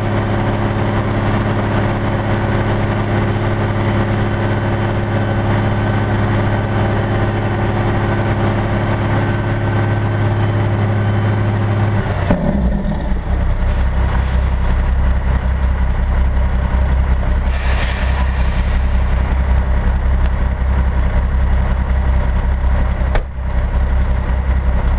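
Mack roll-off truck's diesel engine running steadily at raised revs while the hydraulic hoist lowers the container, then dropping abruptly to a lower, deeper idle about twelve seconds in. A brief hiss comes about eighteen seconds in and a sharp click near the end.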